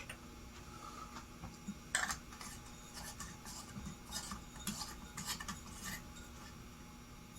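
Irregular light clinks and scrapes of small hard parts being handled, the sharpest about two seconds in and several more in the middle, over a faint steady hum.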